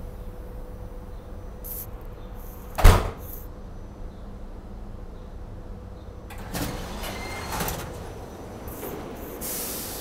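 Side door of a SEPTA Regional Rail car at a station stop, over the steady low rumble of the standing train. There is one loud thump about three seconds in. From about six and a half seconds the door opens with a clatter and hiss, and a short hiss comes near the end.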